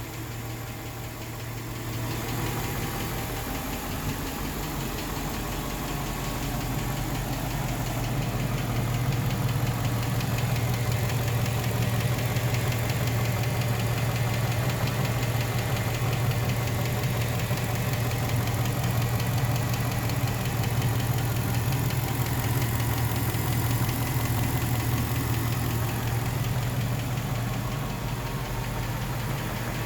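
Chrysler 5.7 HEMI V8 engine idling with a steady, rapid knock: the knock that is the fault being shown. It grows louder about two seconds in and again around eight seconds.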